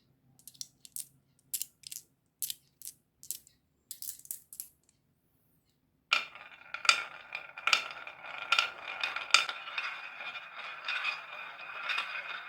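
Marbles on a wooden toy marble run: a quick string of sharp clicks for about four seconds, a short pause, then a continuous rolling rattle with a regular click under it, less than once a second.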